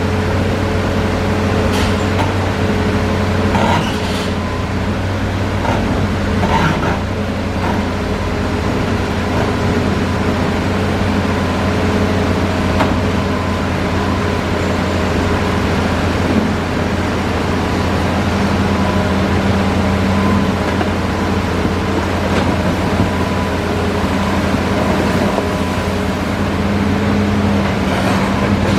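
Hitachi Zaxis 5G excavator's diesel engine running steadily as it works, with a few short knocks in the first several seconds.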